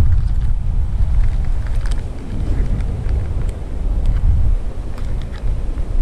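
Strong wind buffeting the microphone, a loud, uneven low rumble. A few faint clicks come from spinner lures being handled in a clear plastic tackle box.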